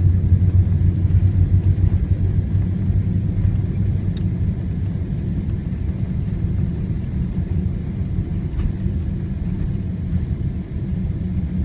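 Cabin rumble of a Boeing 777-200 rolling out on the runway after touchdown, spoilers up; the low rumble eases over the first few seconds as the aircraft slows, then holds steady.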